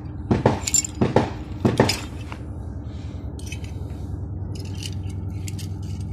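Loose steel pistol parts (frames, magazines, springs) clinking and scraping against each other as they are picked through by hand, with a run of short sharp clinks in the second half, over a steady low hum.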